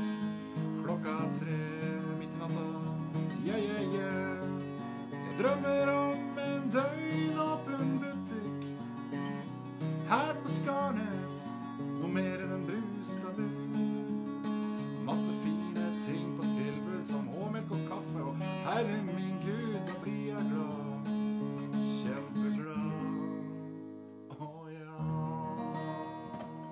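Acoustic guitar strummed, an instrumental passage of chords that dips in loudness near the end before one last strummed chord.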